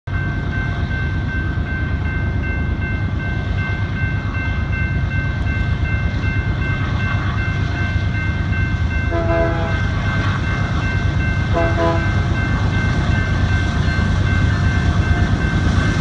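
Freight train approaching, a steady low rumble that grows louder. The lead locomotive, a GE AC4400CW, sounds its horn in two short blasts, about nine and eleven and a half seconds in.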